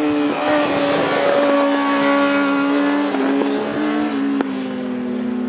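600cc racing motorcycles' engines running at high revs as they pass on the circuit, their pitch stepping as gears change about three and four seconds in.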